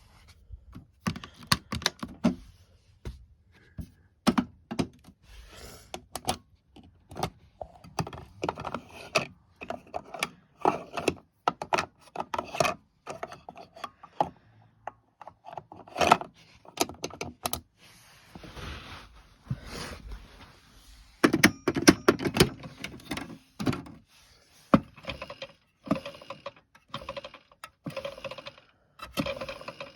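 Plastic toy washing machines being handled: irregular clicks, taps and knocks of plastic parts, with a busier spell of clattering about two-thirds of the way through.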